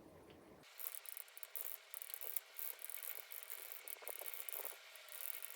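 Typing on a mechanical keyboard, a COX CF75 with orange switches: a fast, irregular clatter of key clicks. It begins just under a second in after a sudden change in the sound.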